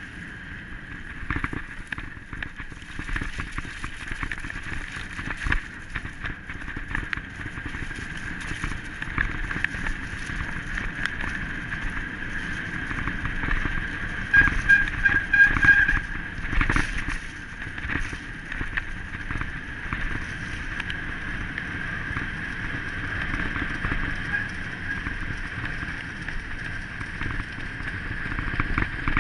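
Running footfalls on a muddy trail and wind rushing over a body-worn action camera's microphone as a runner is pulled along by a dog on a bungee leash. A steady high tone runs underneath, and the rush grows louder about halfway through.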